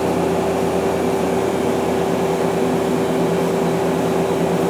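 Okuma LB200MW CNC lathe's sub spindle running steadily at 1000 RPM behind the shut doors, a constant hum with a steady tone.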